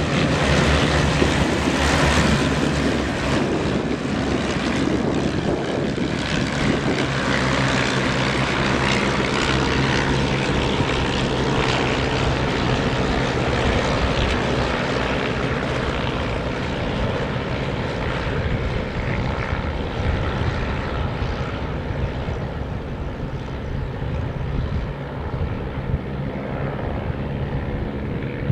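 A formation of Piper Cub light planes on a low pass, their propeller engines droning together in a dense overlapping hum that slowly fades as they fly off into the distance.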